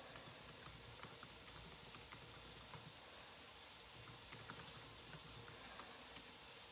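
Faint, irregular crackling and ticking of ground lamb frying in a skillet on low heat, over a quiet background.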